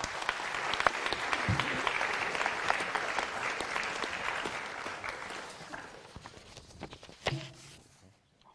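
Audience applauding, a dense clatter of clapping that dies away about two-thirds of the way through, followed by a single knock near the end.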